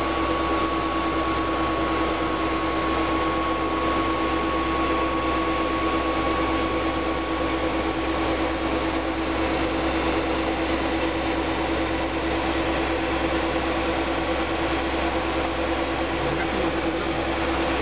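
Steady in-flight noise in the cockpit of a Learjet 60 business jet: a constant rush of air with a steady hum, and a higher tone that fades out about two-thirds of the way through.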